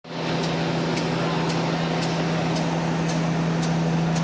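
Automatic kitchen-towel paper rewinding machine running: a steady mechanical hum with a faint, regular tick about twice a second.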